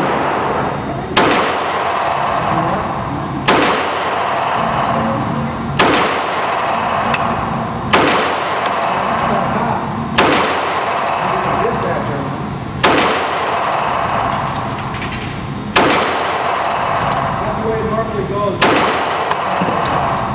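CZ 97B .45 ACP pistol firing Armscor 230-grain ball ammunition: eight single shots, spaced about two to three seconds apart, each followed by a long echoing decay.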